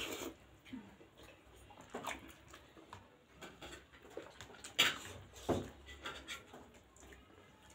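Close-miked eating sounds: chewing and lip-smacking on juicy pork momos, with a few sharp clicks scattered through, the loudest about five seconds in.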